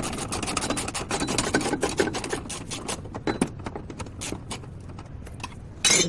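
Quick rasping strokes, about six or seven a second, as something is worked over by hand. They thin out after about three seconds, and a short, louder scrape comes near the end.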